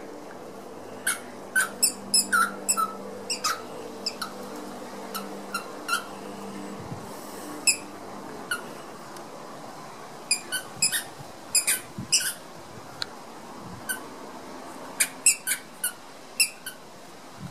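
Dog chewing a squeaky tennis ball: short, sharp, high-pitched squeaks in irregular clusters of several at a time, with gaps between.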